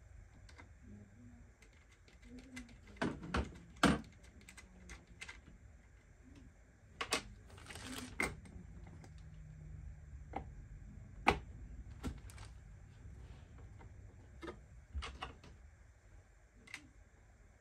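Irregular clicks and knocks of small hand tools and hard plastic parts being handled at an RC monster truck's wheel, with a few sharp knocks standing out and a brief rustle in the middle.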